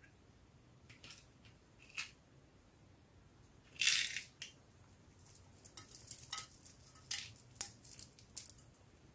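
A small plastic charm container being opened, with a short noisy rasp about four seconds in. Then a quick run of light clicks as small plastic beads, rhinestones and charms are dropped into a glass dish of clear slime.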